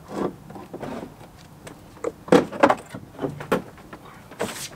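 BMW E46 M3 plastic rear bumper cover being pulled off the car: a string of plastic knocks, clicks and rattles as it comes free of its mounts, loudest midway, with a short scrape near the end.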